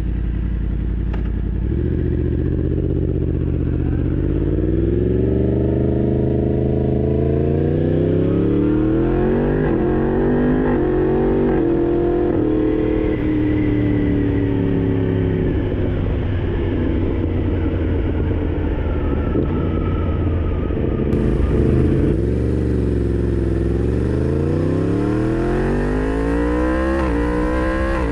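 Yamaha MT-10's crossplane inline-four running through an SC Project aftermarket exhaust, pulling away and accelerating hard. The revs sweep up in pitch through several upshifts. About three-quarters through they drop and then climb again.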